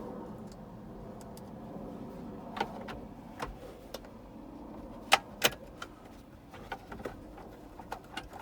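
Scattered sharp clicks and light taps of screws and plastic trim parts being handled, two louder clicks about five seconds in, over a steady low hum.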